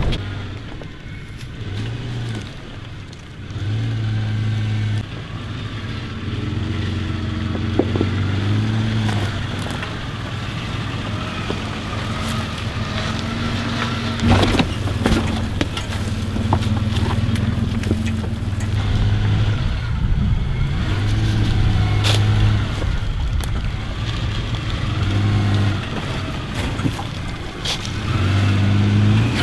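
Engine of a lifted off-road SUV running at low revs as it crawls over rocks, the revs rising and easing now and then. A few sharp knocks sound over it, the loudest about halfway through.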